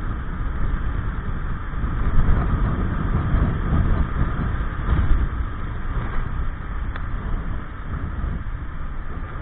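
Gilera Nexus 500 maxi-scooter's single-cylinder engine running steadily while riding through town, mixed with road rumble and wind noise on the microphone.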